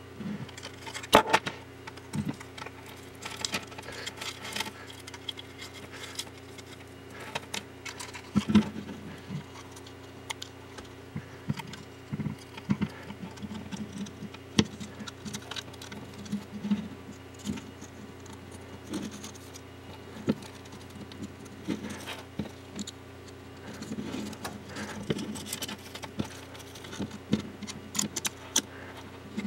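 A flexible LED light strip and a 3D-printed ABS plastic lamp core being handled as the strip is wrapped around the core: irregular light clicks, taps and rustling, with a few sharper knocks of plastic on the wooden bench.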